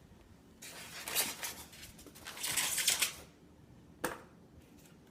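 Rustling and handling noise from the toy's packaging as parts are moved about in the box, followed by a single sharp click about four seconds in.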